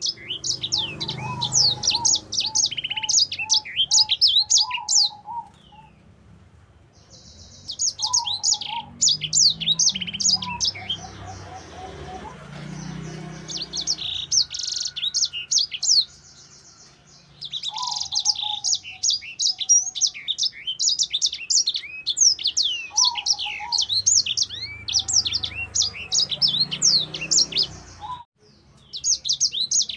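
Caged sanger (grey singer finch) singing fast, high-pitched twittering song in long unbroken runs, with three short breaks.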